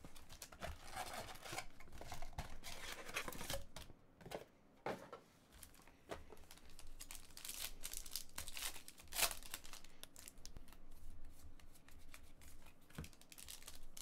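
Foil trading-card pack wrappers crinkling as they are pulled from the box and torn open at the crimped end, in short irregular rips and rustles, with a quieter moment about four seconds in.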